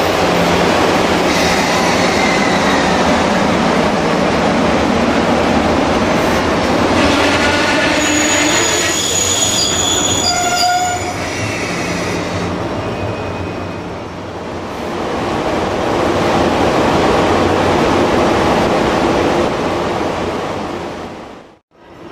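Sleeper train of 24 series 25-type coaches hauled by an EF66 electric locomotive, rolling along the platform with a steady rumble of wheels on rail. High brake squeal joins in about seven to eleven seconds in as it slows.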